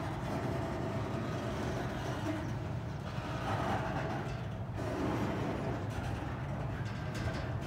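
GP15-1 diesel-electric locomotive with its EMD 12-cylinder 645 engine running steadily as it shoves a string of freight cars, a continuous low rumble.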